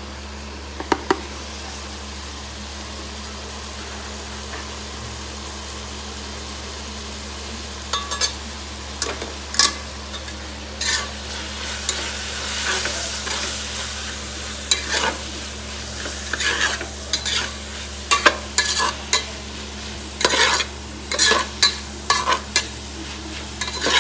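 Onions, vegetables and freshly added spice powders frying in an aluminium pot, stirred with a metal spoon. Scattered scrapes and knocks of the spoon against the pot start about eight seconds in, over a light sizzle: the masala is being sautéed until its raw smell goes.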